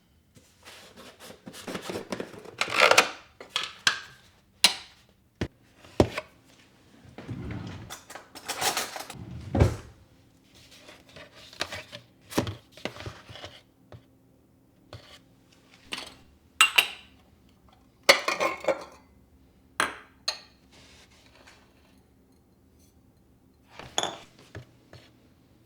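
Household items, likely dishes, being handled and set down: irregular clinks, knocks and short scrapes with pauses between.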